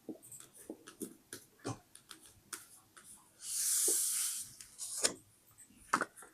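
Close-up paper handling: a run of light taps, clicks and crinkles as paper pieces are moved and pressed, with one longer rustle of paper sliding or rubbing about three and a half seconds in.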